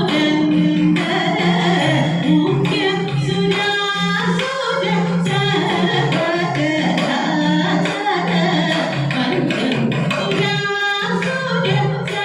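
Music: a Thiruvathirakali song, voices singing a Malayalam devotional verse over a steady accompaniment.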